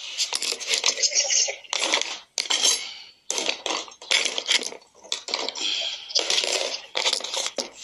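Rapid, irregular rustling and clattering, many short noisy bursts one after another.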